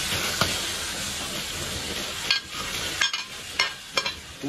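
Oil sizzling in a hot steel wok of fried diced tofu and freshly added glass noodles, stirred with a metal ladle. A little over halfway the sizzle drops and four short, sharp scrapes of the ladle against the wok follow, about half a second apart.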